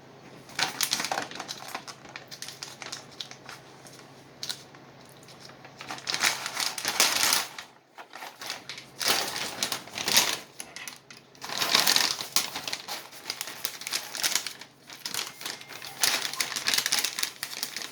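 A bag of coffee beans crinkling and rustling in irregular bursts as it is handled and opened.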